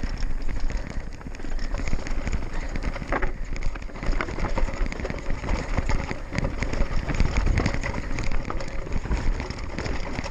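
2016 GT Fury World Cup downhill mountain bike rolling fast over a rocky dirt trail: tyres crunching over loose stones, with a constant clatter and rattle from the bike and low rumbling wind noise on the camera. There is a sharper clack about three seconds in.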